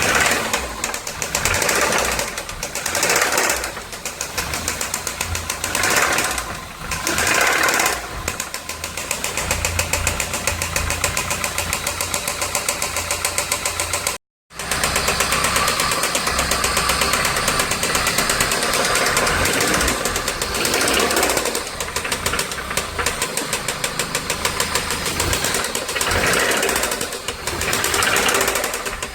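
Volkswagen AP 1.8 four-cylinder engine running with a loud, fast, steady knocking that swells louder several times. The owner attributes it to play in the connecting rods, the noise having persisted after a new oil pump and new hydraulic lifters.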